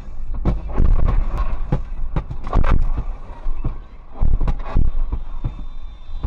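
Dashcam recording from inside a moving car: a steady low road and engine rumble under an irregular run of sharp bangs and cracks from a missile explosion and fire on the road just ahead.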